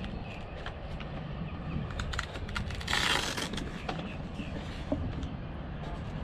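Handling noise as a LiPo battery pack is fitted into the foam fuselage of an RC plane: scattered clicks and a short rustling scrape about three seconds in, over a steady low rumble.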